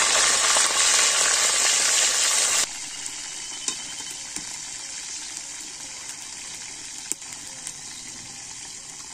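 Fish pieces frying hard in hot oil in a wok, a loud steady sizzle, as a liquid is poured in from a jug. About three seconds in it drops suddenly to a quieter, steady sizzle with a few light clicks.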